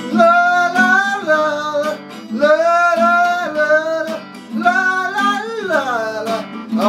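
A man singing long, sliding notes in several phrases without clear words, over a strummed acoustic guitar.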